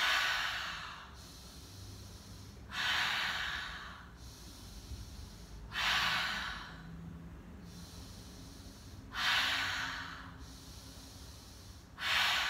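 A woman's deep breathing, five forceful exhales each starting sharply and fading over about a second, roughly three seconds apart.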